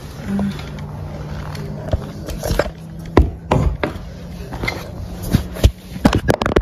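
Handling noise of a phone being picked up from a wooden floor while a bag and belongings are gathered: scrapes, rustles and sharp knocks, coming thicker near the end, over a low steady hum.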